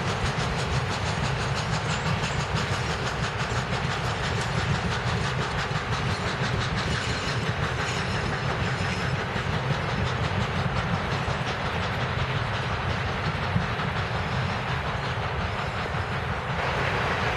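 Steam-hauled passenger train rolling past and on out of sight: a steady low rumble of wheels on rail with fast, even clicking. The sound brightens briefly near the end.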